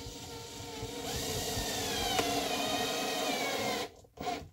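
Cordless drill driving a screw through a plastic mounting foot into the board: the motor runs for about four seconds, its pitch sliding down and its level rising as the screw bites and tightens. It stops, then gives one short extra burst near the end to snug the screw down.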